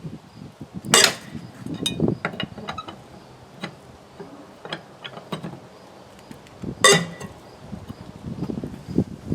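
Metal clanks of a lug wrench on the wheel's lug nuts as the nuts are broken loose. There are two loud sharp clanks, about a second in and near seven seconds in, with lighter metallic clicks between.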